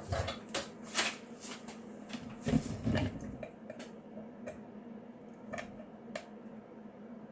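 A run of sharp clicks and light knocks over a steady low hum, thinning out to a few scattered ticks after about three and a half seconds.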